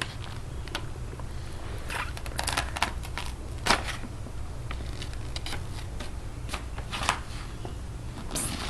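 Scattered soft rustles and small clicks of objects being handled and moved about, a little sharper near the middle and about two-thirds of the way in, over a low steady hum.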